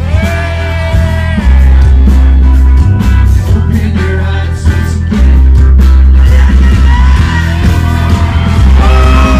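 Live rock band playing loud through the stage speakers: heavy bass, electric guitars and a singer holding long notes.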